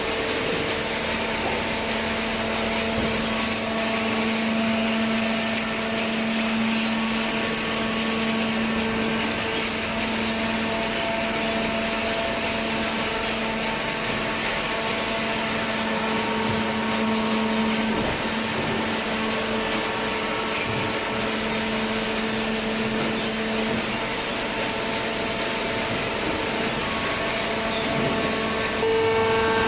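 Vertical hydraulic baler's electric motor and hydraulic pump running steadily with a humming whine, the press cycling on shredded paper.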